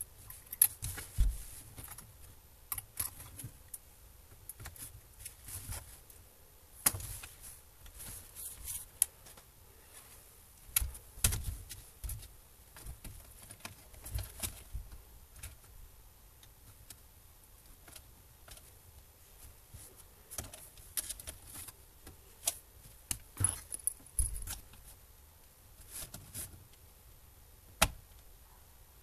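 Irregular clicks, taps and light clatter of an Acer Aspire V3-771G laptop's plastic case, cables and small parts being handled during disassembly, a few knocks much louder than the rest, with a quieter spell partway through.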